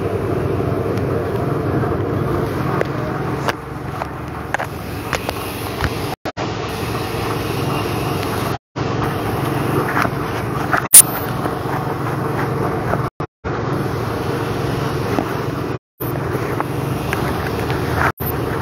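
Steady low rumble of background noise with a few sharp clicks, cut by several brief dropouts where the sound stops completely for a moment.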